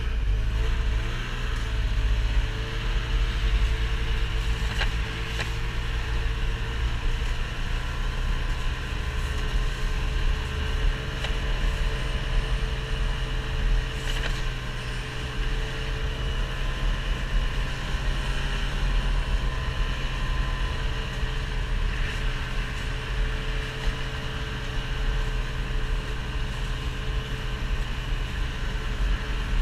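A vehicle engine running steadily at an even speed, a constant low rumble with a faint wavering hum above it.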